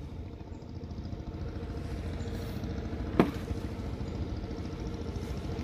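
A small engine running steadily at idle, with one sharp click about three seconds in.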